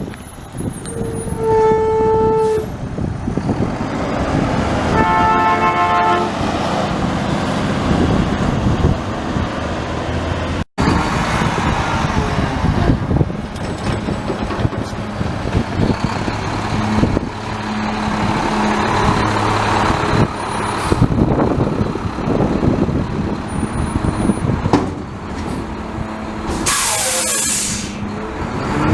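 Garbage truck running, with two horn toots in the first several seconds and a short burst of hiss near the end.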